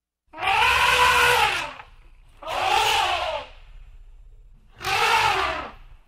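African elephant trumpeting three times, about a second apart, each blast harsh and brassy, rising in pitch and then falling away, with a low rumble beneath.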